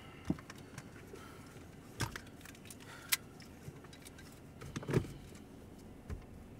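Quiet car-cabin background with several light clicks and knocks scattered through it, the sharpest about three seconds in.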